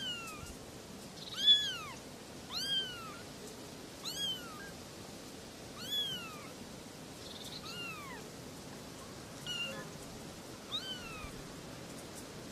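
Kittens meowing: about eight high, thin mews, each rising then falling in pitch, coming a second or two apart, the loudest about a second and a half in.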